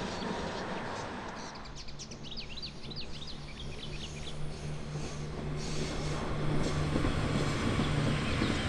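The noise of a train passing on a railway bridge fades out. It gives way to a steady low diesel hum and a few seconds of bird chirps, as a Desiro diesel railcar approaches over the bridge, its running noise swelling near the end.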